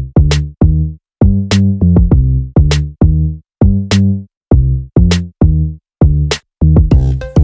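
Electronic background music: drum-machine hits with deep pitched bass notes in a stop-start rhythm, about two strikes a second. The beat fills out with fast hi-hat ticks near the end.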